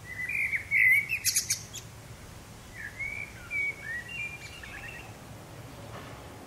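Songbirds chirping and singing in short whistled phrases, busiest in the first five seconds. A steady low rumble of distant road traffic runs underneath.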